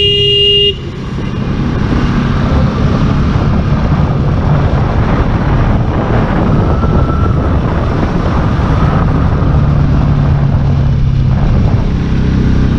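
Motorcycle riding along a road, its engine running under a steady rush of wind on the microphone. A vehicle horn sounds briefly at the start and cuts off within the first second.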